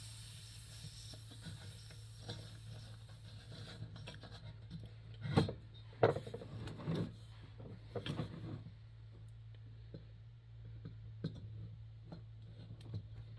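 Pressurised air hissing out of a Coleman 220J lantern's fuel fount as the valve wheel comes off, fading away over the first few seconds. Then a few sharp metal clicks and light scraping as the lantern parts are handled, over a steady low hum.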